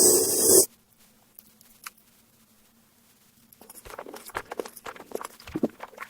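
A loud burst of hiss lasting about half a second, then a pause, then from about three and a half seconds in a run of irregular wet clicks and squelches of chewing.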